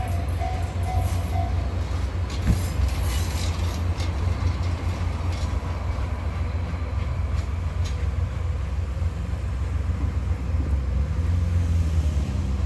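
Train passing close by: a steady heavy low rumble with rushing noise, and a few sharp clicks of wheels on the rails a few seconds in.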